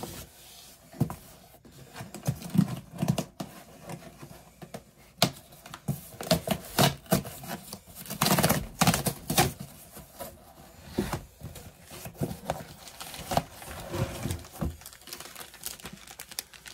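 Packaging being torn open and crinkled by hand, with irregular rustling bursts and scattered sharp clicks and taps.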